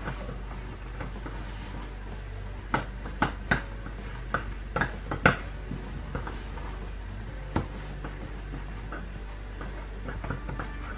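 Wooden spoon stirring thick, lumpy churro dough in a stainless steel saucepan, scraping and knocking against the pan's sides. The sharp clacks come in a cluster from about three to five seconds in, with one more later, as flour is worked into the hot pumpkin liquid.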